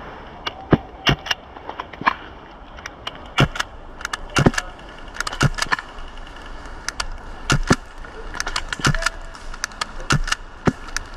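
Airsoft guns firing during a skirmish: many sharp cracks and clicks of shots going off at irregular intervals, sometimes several in quick succession.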